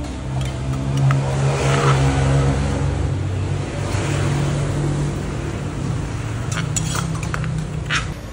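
A motor vehicle engine running close by and passing, a steady low drone that swells and fades. A few light clinks of a metal spoon against a clay mortar come near the end.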